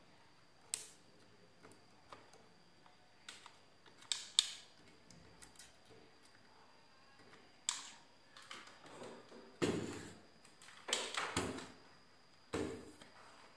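Small electrolytic capacitor and hookup wires being handled on a circuit board: irregular small clicks, taps and short scrapes of leads and fingers against the board, with fuller rustling knocks in the second half.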